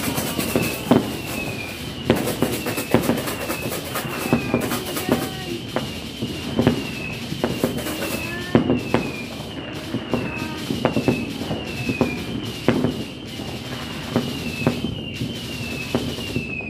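Many fireworks and firecrackers going off across a neighbourhood: a rapid, uneven series of sharp bangs and crackles, with a couple of rising whistles. A high, short falling chirp repeats a little faster than once a second underneath.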